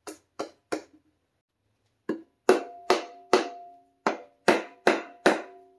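A mallet tapping a Honda K24A2 aluminium cylinder head down onto the block's dowel pins. Three light taps, a pause of about a second, then nine harder taps at about two or three a second, each leaving a short metallic ring.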